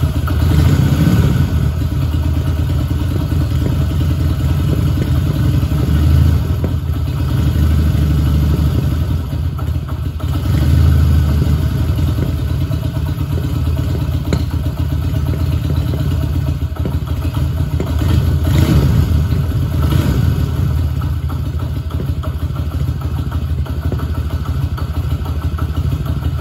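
Honda 305 Dream's air-cooled parallel-twin engine running just after a cold start. Its speed rises briefly a few times, then it settles to a steady run.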